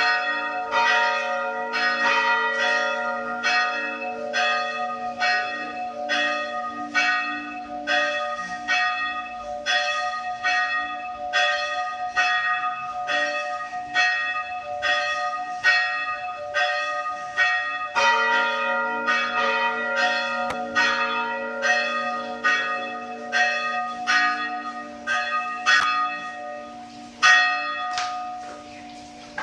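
Church bells tolling for a funeral mass, struck steadily about three times every two seconds, with the tones ringing on between strokes. Near the end the ringing stops, one last stroke comes, and it dies away.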